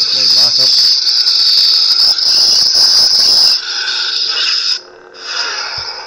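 Lightsaber sound effects from a Crystal Focus v5 soundboard, played through the hilt's small speaker: a steady high-pitched hum with blaster-deflect effects triggered from the hilt button. The sound drops away briefly about five seconds in, then comes back.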